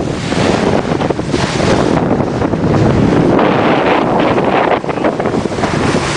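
Loud, steady wind buffeting the microphone over the rush of sea water along a moving boat.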